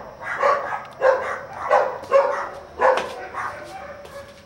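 A dog barking over and over, a bark about every half second, stopping about a second before the end.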